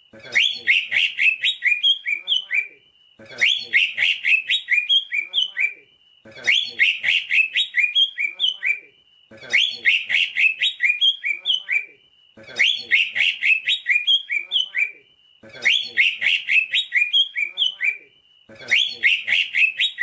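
Cucak ijo (green leafbird) singing: a fast run of high chirping and whistled notes, each phrase about two and a half seconds long. The phrase repeats with a short pause about every three seconds, the same each time, as in a looped masteran song track.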